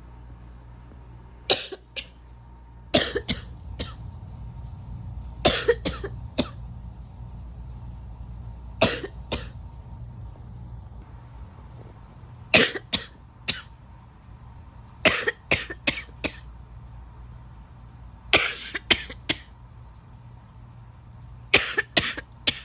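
A person coughing in about eight short fits of two to four coughs each, a fit every few seconds. A steady low hum runs underneath.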